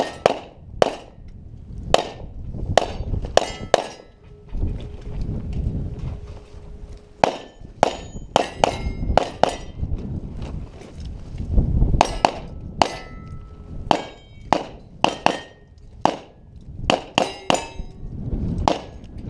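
Glock 34 9mm pistol firing a long string of quick shots in irregular groups, with steel plate targets ringing after hits. There are pauses of a few seconds between the groups.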